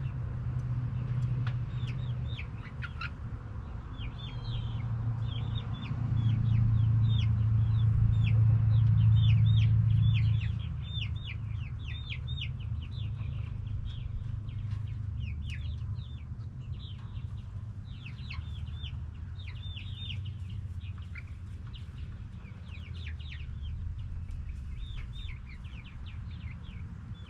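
Backyard chickens clucking and calling in short, quick high-pitched notes, over a low rumble that swells between about six and ten seconds in.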